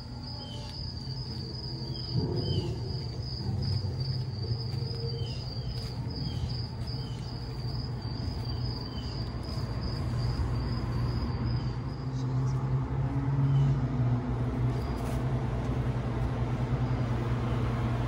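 A low steady hum runs throughout. Over it sits a steady high insect buzz with a few short chirps, and the buzz stops about two-thirds of the way through.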